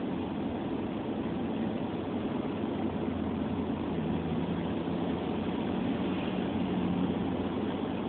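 Car driving on a wet road, heard from inside the cabin: a steady rumble of engine and tyres, with a faint low hum coming in about halfway through.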